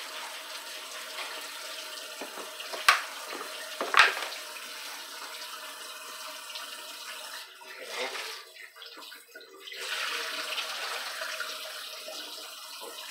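Kitchen faucet running a steady stream into a stainless steel sink while it is wiped down with a rag. Two sharp knocks about three and four seconds in, and the sound of the stream breaks up briefly around eight seconds.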